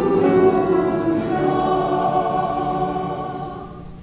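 Church choir singing sustained chords, dying away near the end.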